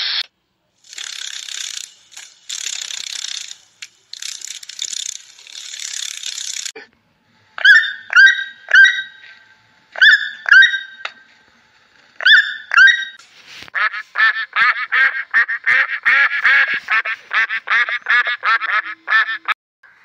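Piglets squealing in short noisy bursts. After a break, an aracari gives a series of sharp calls, each falling in pitch. Near the end comes a fast run of short, repeated chattering calls.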